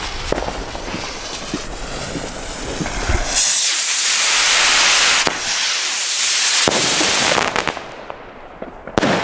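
Two small fireworks rockets: crackly fuse sputtering for about three seconds, then the rockets launch one after the other, each with a loud rushing hiss, followed by a sharp bang near the end.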